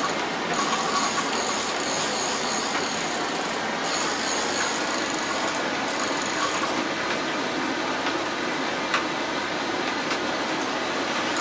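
Fishing reel working steadily as a big fish is played on a hard-bent rod, a continuous mechanical whirr. A high hiss above it drops away about seven seconds in.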